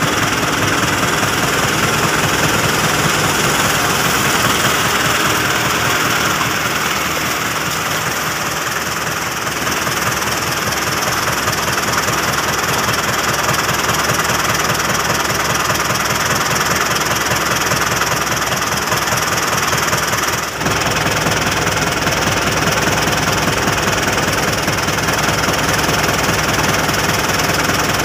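Diesel farm tractor engine running under load with a rapid, steady knock, as a New Holland tractor pulls a loaded trailer through deep mud. A short drop in level comes about two-thirds of the way through.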